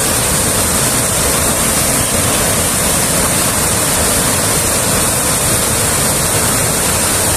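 Fast-flowing water rushing with great force, a loud, steady rush with no let-up.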